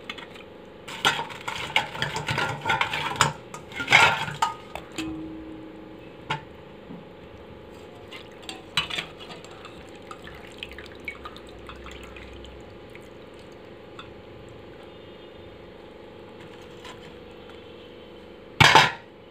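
A steel slotted skimmer clinks against a steel pot as fried bread slices are dipped in milk and lifted out dripping. There is a busy run of clinks and knocks in the first few seconds, then scattered light clicks, and one louder clatter near the end.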